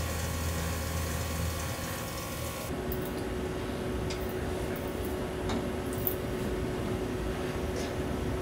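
A Tormach 1100MX CNC mill runs its cut with a steady hum and the hiss of flood coolant spraying the workpiece. This cuts off sharply about 2.7 s in, leaving a steady hum and a few light metal clicks as a tap is hand-turned with a wrench into an aluminium part.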